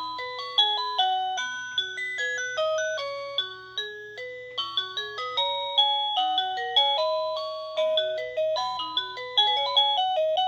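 OhmKat video doorbell chime playing one of its built-in tunes, number 21: a lively electronic melody of short pitched notes, several a second.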